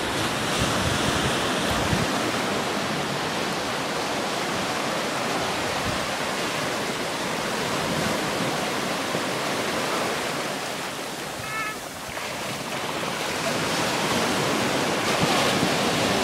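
Surf on a sandy beach: a steady rush of small waves breaking and washing up the shore, dipping briefly about twelve seconds in.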